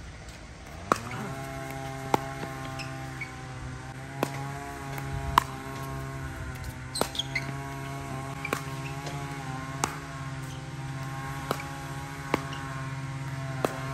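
Pickleball paddles hitting the ball in a rally: about ten sharp pops at uneven intervals of roughly a second. Under them runs a steady drone made of several tones, which rises slightly about a second in.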